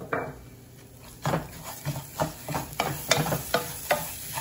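A wooden spoon stirring dry-sautéing long-grain rice and carrot strips in a pot, scraping across the pan in quick, uneven strokes that start about a second in. There is a brief knock at the very start.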